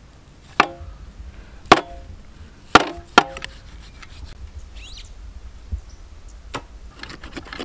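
A heavy butcher's knife chopping into a buffalo head: four sharp chops about a second apart, the last two close together, each with a brief metallic ring, then a lighter knock.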